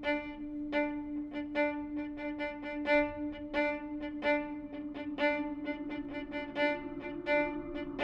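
Improvised music for viola and live electronics: a steady drone note under short repeated notes, about three a second. A rougher, buzzing layer joins the drone about six seconds in.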